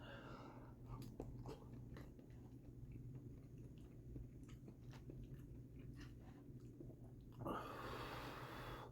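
A person chewing soft pasta in a creamy sauce with the mouth close to the microphone: faint wet clicks and smacks at an uneven pace, then a breath out through the nose about seven and a half seconds in.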